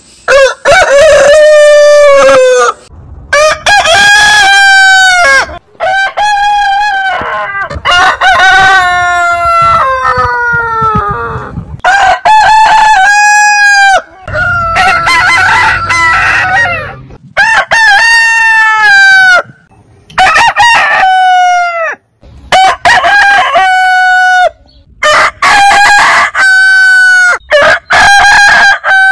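Roosters crowing, one crow after another: about a dozen crows from different birds, each a second or two long with a drawn-out falling ending, some higher-pitched and some lower.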